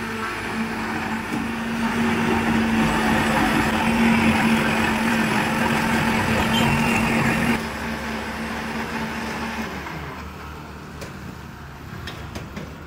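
Electric blender motor running, blending watermelon into juice: a steady hum with churning noise over it. It is loudest in the middle, drops sharply about seven and a half seconds in, and fades out over the next couple of seconds.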